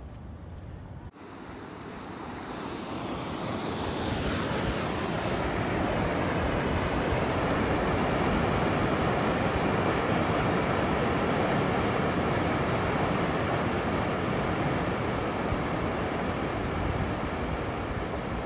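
River water rushing through whitewater rapids over a low concrete weir, a steady churning rush that swells over the first few seconds and then holds.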